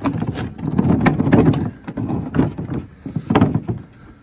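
Moulded plastic chainsaw carrying case being worked at by hand to open its latch: a run of plastic knocks and latch clicks over rough handling noise, the loudest stretch about one to one and a half seconds in.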